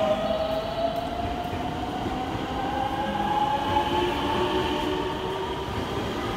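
An electric commuter train pulls out of a station. The whine of its traction motors rises steadily in pitch as it accelerates, over the rumble of its wheels on the rails.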